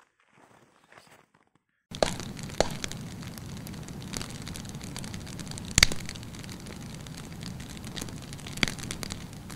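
Wood campfire burning with a steady rush and crackle, broken by sharp pops from the burning logs, the loudest about six seconds in. The fire sound cuts in suddenly about two seconds in, after near silence.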